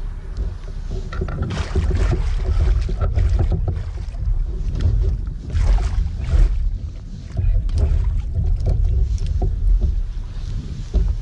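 Wind buffeting the microphone on a fishing kayak, a steady low rumble, with two louder stretches of rushing noise about two and six seconds in.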